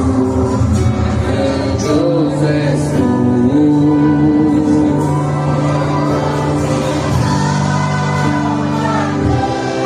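Gospel worship song: singing with accompaniment, in long held notes.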